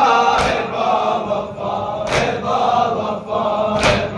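A group of men chanting a noha lament together, with a loud unison chest-beat (matam) striking three times, about one every second and three quarters.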